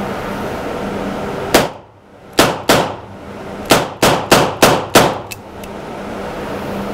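Smith & Wesson M&P R8 eight-shot revolver firing eight rounds of .38 Special rapid fire, the first shot single action and the rest double action. The shots come as one alone, then a quick pair, then a run of five about a third of a second apart.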